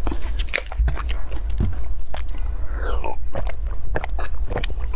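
Crackling and clicking as the plastic seal is peeled off a small plastic bottle of milk, then slurping and gulping as the milk is drunk, close to the microphone.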